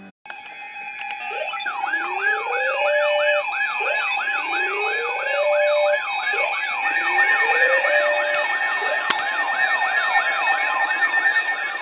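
Sirens sounding together: a fast yelp sweeping about three times a second over a slower wail that rises every two or three seconds, with steady tones held underneath. It starts abruptly just after a brief silence.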